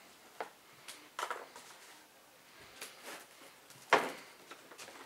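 Plastic bottles being handled: a string of knocks and clicks from a plastic flask and a large plastic jug of distilled water, the loudest knock about four seconds in.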